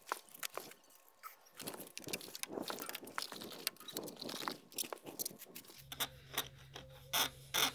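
Pencil scratching a line onto a concrete floor along an aluminium level, with short clicks and taps as the level and pencil are handled, louder near the end.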